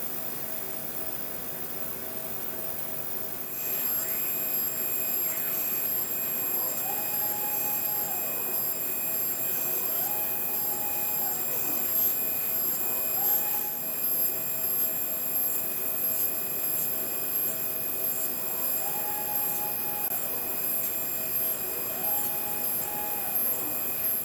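Tire-sidewall inkjet printer running: a steady machine whine, joined about three and a half seconds in by higher steady tones. A motor tone rises, holds and falls back again five times.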